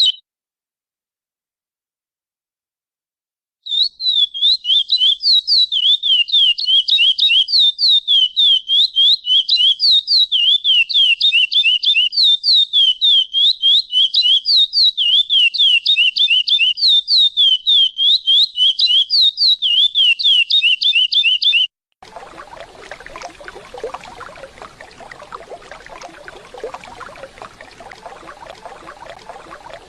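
Lesser seed finch (curió) giving a pialada: a fast, even run of sharp, high chirps, several a second, starting a few seconds in and cutting off abruptly about two-thirds through. The steady rush of a waterfall then takes over.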